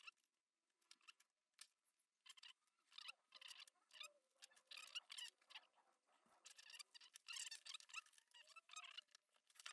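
Faint, irregular clicks and rattles of hard plastic RC car parts being handled and fitted into a Tamiya DF-02 chassis, busier in the second half.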